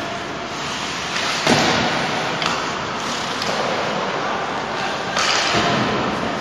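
Ice hockey play in an indoor rink: skates scraping on the ice under a steady hall noise, with sharp knocks of sticks and puck. The loudest knock comes about a second and a half in.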